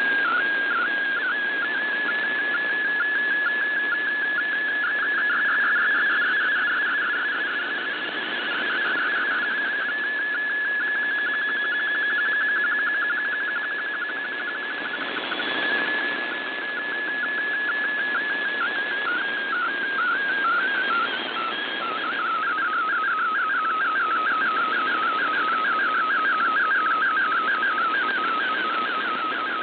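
Shortwave MFSK32 digital image transmission from VOA Radiogram: a fast-warbling, whistle-like data tone that jumps about within a narrow pitch range, over a steady hiss of shortwave noise. The reception is marginal, and the signal swells and fades.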